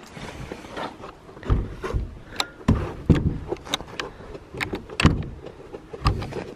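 A wooden plank door being shut and latched: irregular metallic clicks and rattles as its steel slide-bolt latch is worked by hand, with several dull knocks of the wooden door.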